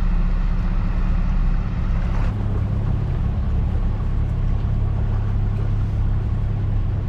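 25 hp Mercury outboard motor running steadily with the boat under way, a constant low drone. Its note shifts a little about two seconds in.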